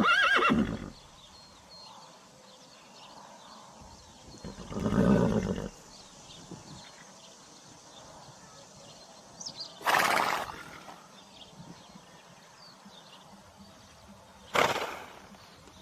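Horse neighing in four separate calls a few seconds apart. The first is high and pitched, the second lower and longer, and the last two are short and noisy.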